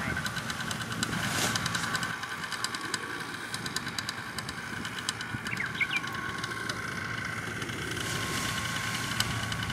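Paramotor engine idling steadily, a constant pitched hum.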